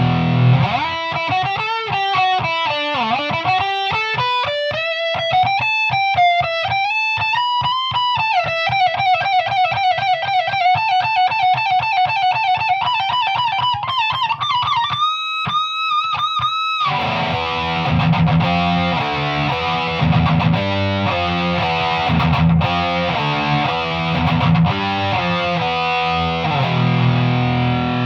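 Electric guitar played through a Boss MT-2 Metal Zone high-gain distortion pedal. A fast single-note lead run climbs in pitch, then a few high notes are held with vibrato about halfway through. Heavy distorted low chords and riffing follow.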